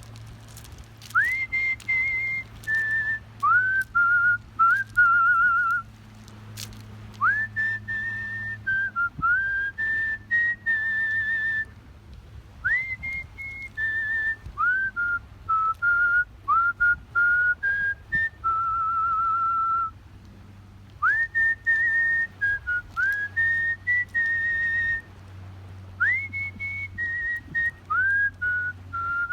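Artistic whistling by mouth: a melody of single pure notes, each phrase opening with an upward swoop, held notes with vibrato, in short phrases with pauses between them.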